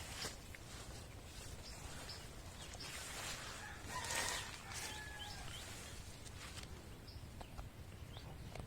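Faint outdoor background with scattered short bird chirps and a brief swell of rustling noise about four seconds in.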